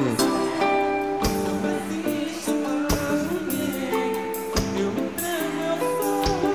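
Live pagode band music: held chords over a beat struck roughly every second and a half, with some singing.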